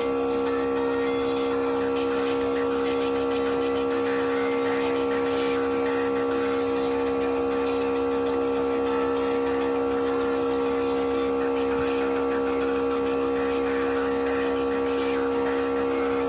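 Compressor nebulizer running with a steady hum at one unchanging pitch as it turns liquid medicine into mist.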